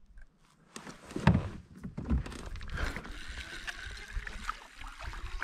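Handling noise on a plastic fishing kayak: knocks and rattles against the hull, with water lapping. The loudest are dull thumps about one and two seconds in.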